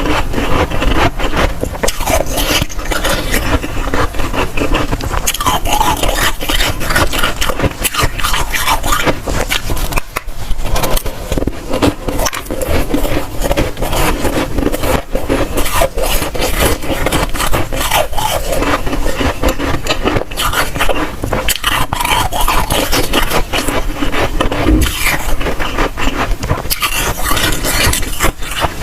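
Close-miked crunching and chewing of dry, soft freezer frost: dense crackly bites and scrapes, one after another.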